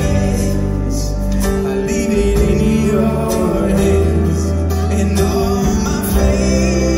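Live band music: acoustic guitar, bass guitar, cajon and keyboard playing a slow song, with a male voice singing.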